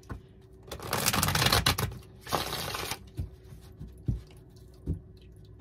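A Rider-Waite-Smith tarot deck shuffled by hand in two quick bursts of riffling card noise, followed by a few soft taps as the deck is handled and squared.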